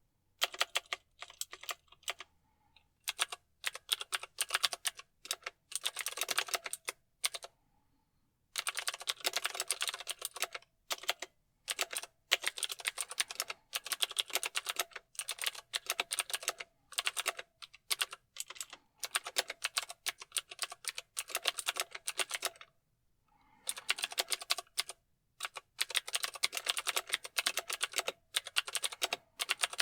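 Mechanical keyboard keys clicking in fast runs of typing, broken by short pauses of about a second, the longest about eight seconds in.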